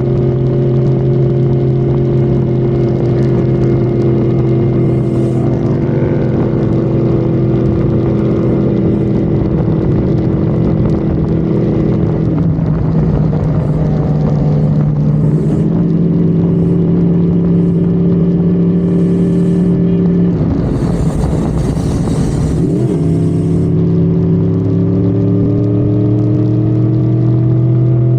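Honda Civic FD's engine running at high, steady revs at highway speed. The pitch shifts about twelve seconds in, a burst of rushing noise comes around twenty-one to twenty-three seconds, and then the engine note climbs steadily as the car accelerates.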